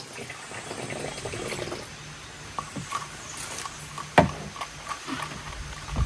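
Soap being stirred into liquid in a small plastic cup: small scraping, sloshing and handling clicks, with one sharp knock about four seconds in.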